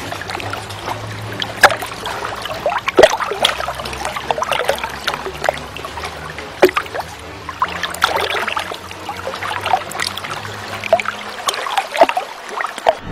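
Water trickling, with irregular sharp drips and splashes, over a low steady hum that stops near the end.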